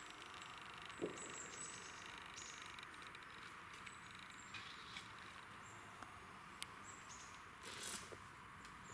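Quiet woodland ambience with short, high bird chirps every second or so. There is a single thump about a second in and a brief rustle of footsteps on forest litter near the end.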